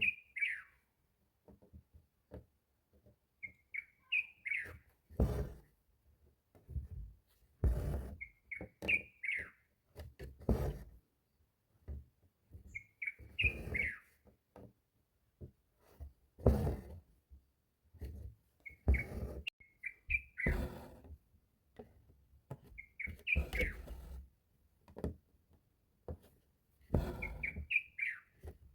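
A bird chirping: a quick run of short, high notes every four seconds or so. Between the chirps come soft rustles and light knocks, typical of hands working fabric in an embroidery hoop.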